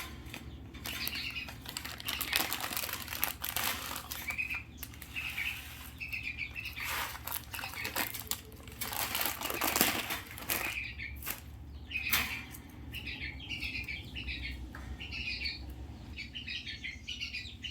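Hill myna (beo) giving short repeated chirps, coming thicker over the last few seconds, with several loud harsh rasping bursts in between.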